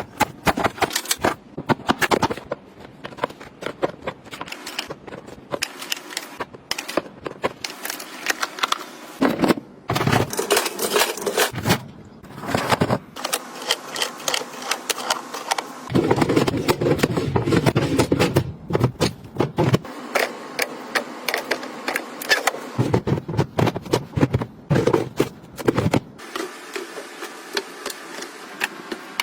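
Items being handled and set down by hand: a run of irregular clicks and taps, with stretches of rustling twice.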